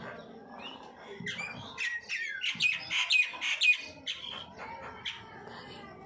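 Common myna calling: a run of chattering, whistled and squawking notes, loudest about halfway through with several quick repeated high notes.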